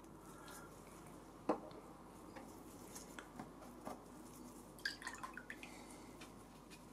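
Faint scattered clicks and taps from a small resin figure and an ink brush being handled in gloved hands, over a low room hum. One sharper click comes about a second and a half in, and a quick run of ticks follows near five seconds.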